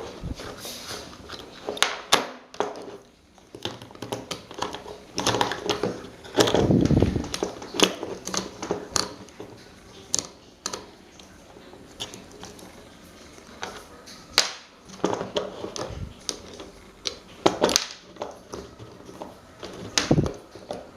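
Hand work on an old fan's parts: irregular clicks, knocks and scrapes of tools against metal, with a longer rough scraping stretch about six seconds in.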